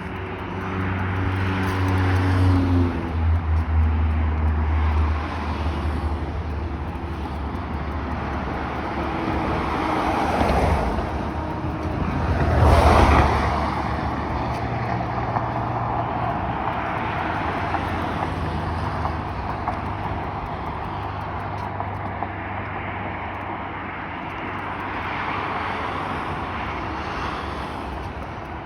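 Road traffic driving past: a steady tyre and engine rush that swells as vehicles go by, loudest about 13 seconds in, with a low engine drone in the first few seconds.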